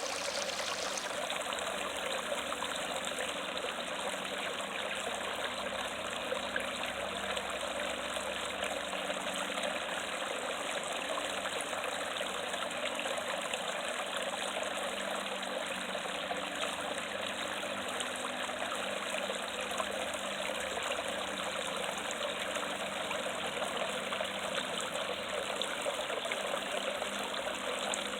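Creek water falling and splashing over rocks in a small waterfall, a steady, unbroken rush.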